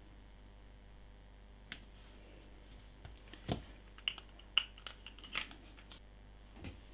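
A handful of light, scattered clicks and taps from handling a plastic liquid-glue bottle: its green cap is pushed back on and the bottle is set aside.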